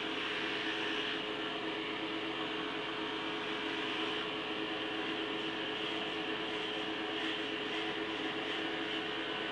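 Electric hair clippers running with a steady buzz while shaving a head.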